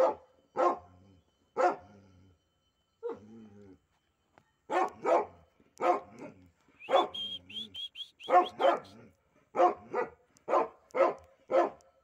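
Pit bull barking over and over in short, loud barks, with a pause of about a second near the middle. A quick run of short, high, rising chirps comes about seven seconds in.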